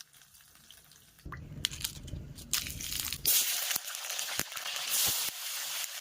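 Oil sizzling and crackling in a cooking pan, a steady hiss dotted with sharp pops that jumps up sharply about three seconds in.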